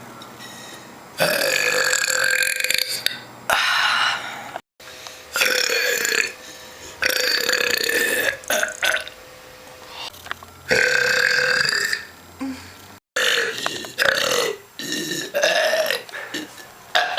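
A woman belching over and over from fizzy drinks: about seven long, loud burps, most lasting one to two seconds, with short pauses between them.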